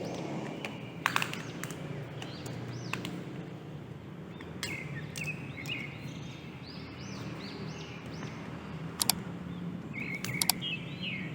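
Birds chirping in short repeated arching calls over a steady low outdoor hum, with a few sharp clicks about a second in and again near the end.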